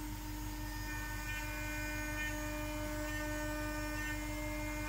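CNC router spindle running with a steady whine as an end mill cuts into a 20 mm aluminum plate. Higher tones join in about a second in.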